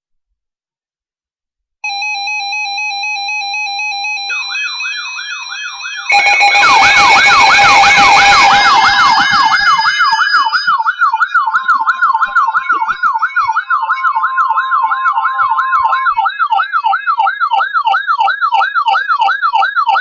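Electronic siren. A steady buzzing tone starts about two seconds in, then a siren joins, rising and falling quickly, about three times a second. A loud noisy burst runs over it for about four seconds, starting about six seconds in.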